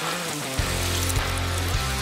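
Background music: a bass line and a steady beat come in about half a second in, over sustained pitched instrument tones.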